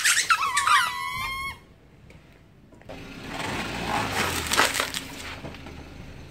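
A car tyre squashes a cluster of small hollow rubber emoji balls, which let out a loud squeal that drops in pitch and then holds for about a second and a half. A second or so later the tyre crushes a styrofoam food container with a crackling, snapping crunch that lasts a couple of seconds.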